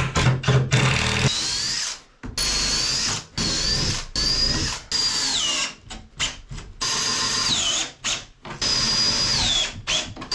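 Cordless drill driving wood screws into a marine-plywood boat bulkhead, in a series of short runs of motor whine. Several runs drop in pitch just before they stop as the screw draws tight.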